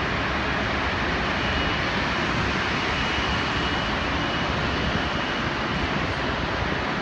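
Jet engines of a taxiing Airbus A380 at low taxi power, a steady rushing noise with a faint thin whine in the middle.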